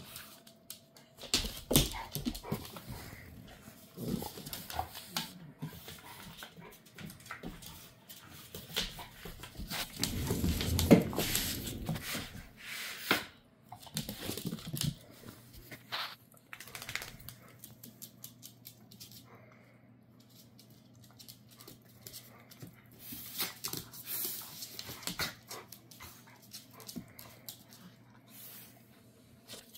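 Two dogs, one large and one small, play-wrestling: panting, whimpers and scuffling, with many sharp clicks and knocks of claws and bodies on a wooden floor. The scuffling is busiest about a third of the way in.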